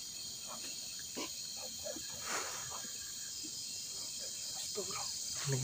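Crickets chirping in a steady night-time chorus, with one soft brief noise a little over two seconds in.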